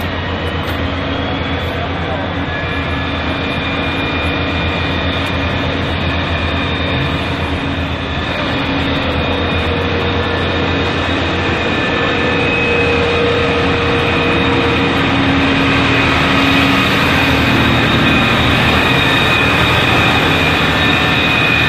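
Firefighting machinery working at a fire that is still not fully out: a loud, steady engine-and-pump drone with several held tones. It grows louder about 8 seconds in and again later.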